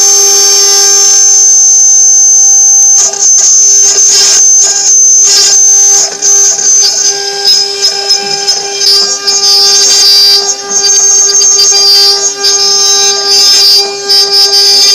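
CNC milling router running and cutting, its spindle giving a steady high whine over a lower hum, with the noise of the cut rising and dropping irregularly.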